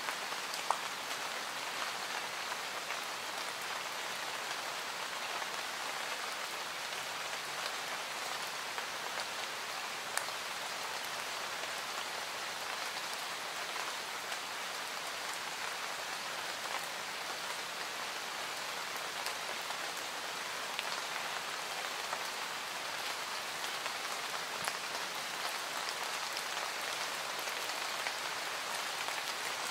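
Steady rain from an added rain-sounds recording: an even hiss with a few faint sharp ticks scattered through it.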